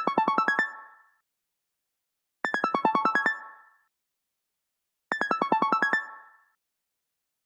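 Phone ringtone: a short electronic phrase of about eight quick keyboard-like notes, mostly stepping down in pitch with a jump back up at the end. It plays three times, about two and a half seconds apart.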